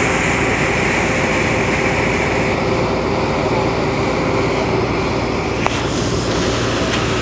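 Boat engine running with a steady drone, over water rushing past the hull; the hiss of the water thins a little about two and a half seconds in. A single short knock comes late on.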